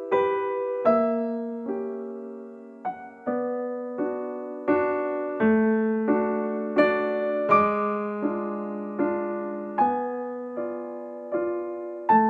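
Background piano music: notes and chords struck at an even pace, a little more than one a second, each ringing and fading.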